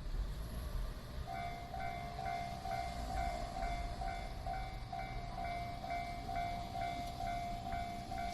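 Japanese railway level-crossing warning bell starting to ring about a second in: a repeating electronic 'kan-kan' tone, about two and a half strokes a second, over a low rumble.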